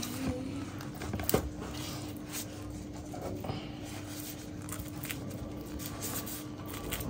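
Raw fish pieces being handled in a plastic tray by a hand in a disposable plastic glove: soft squishing and glove rustling, with a sharp click about a second in. A steady low hum runs underneath.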